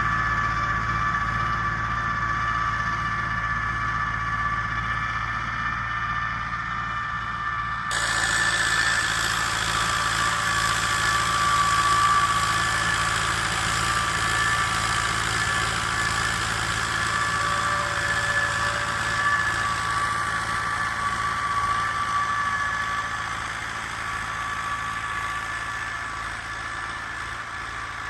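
YuMZ-8040 tractor engine running steadily with a high whine over it. About eight seconds in the sound turns suddenly brighter and hissier.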